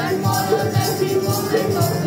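Instrumental music accompaniment with a quick, steady beat and held pitched notes, playing before a group song.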